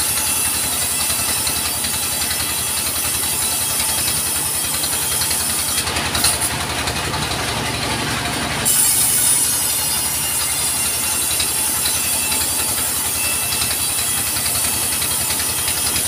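Sawmill's engine running steadily at idle, a fast even chugging, while no log is being cut.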